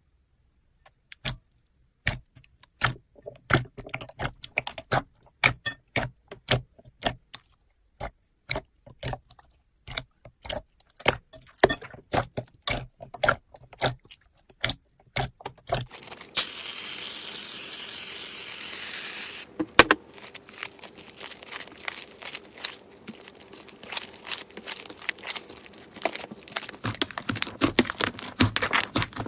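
Crunchy slime being squeezed and pressed by hand: rapid, irregular sharp clicks and crackles. A little past the middle, a steady hiss-like noise lasts about three seconds before the crackling resumes.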